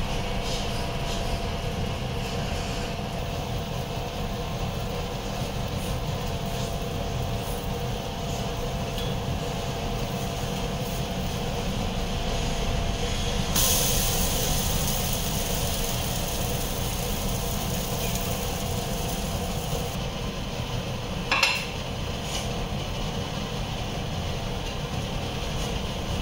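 Dosa cooking on a flat pan over a gas stove: a steady low rumble throughout. About halfway through a hissing sizzle starts suddenly as the dosa is turned and lasts several seconds. A few seconds later comes a single sharp, ringing clink of the metal spatula against the pan.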